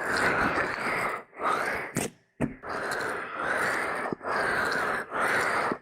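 Hands rubbing over the ears of a binaural ASMR microphone: a rough swishing noise in several long strokes, with short breaks between them.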